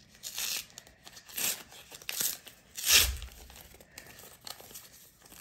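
A handmade paper envelope being torn open by hand: a few short rips and crinkles of paper, the loudest about three seconds in, with a low bump.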